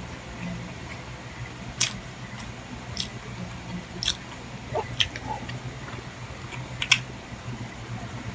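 Close-up chewing and mouth noises of someone eating chicken liver and gizzard adobo, with sharp wet clicks and smacks about once a second over a steady low hum.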